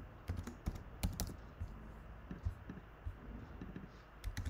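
Typing on a computer keyboard: irregular key clicks, a quick run in the first second or so, sparser strokes after that, and a few more near the end.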